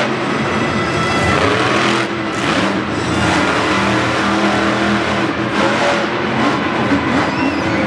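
Monster truck's supercharged V8 engine revving and running loud, its pitch rising and falling repeatedly.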